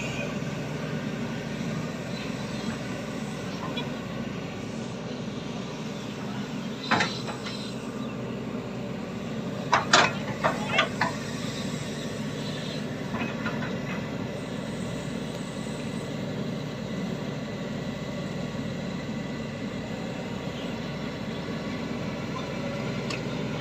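Excavator's diesel engine running steadily, with a sharp knock about seven seconds in and a quick cluster of louder knocks around ten to eleven seconds in.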